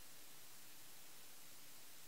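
Quiet room tone: a steady, even hiss with a faint low hum, and no distinct events.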